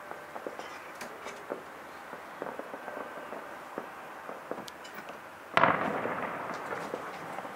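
Distant fireworks and firecrackers: scattered sharp pops, then about two-thirds of the way in one much louder bang that trails off slowly.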